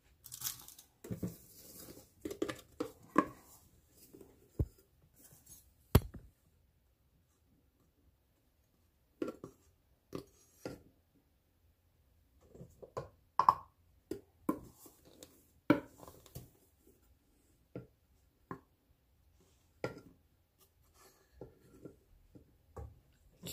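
Irregular taps, knocks and scrapes of a measuring cup being dipped into flour in a clear plastic canister and levelled off with a butter knife, with a few short pauses.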